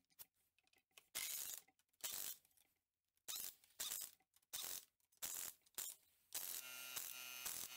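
Pneumatic wrench on an air hose, run in about eight short bursts and then one longer run near the end, spinning the lug nuts down onto a car's rear wheel.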